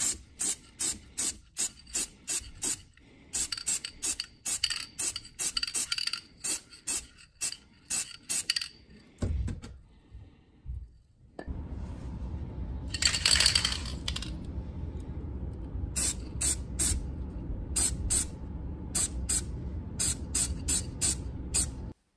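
Aerosol spray-paint can sprayed in quick short spurts, with one longer spray about halfway through and more short spurts after it. A low steady rumble runs under the second half and stops abruptly near the end.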